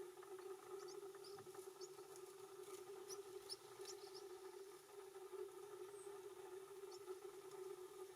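Faint, short high chirps from a wild Atlantic canary. A cluster comes in the first few seconds and one more about seven seconds in, over a steady low hum.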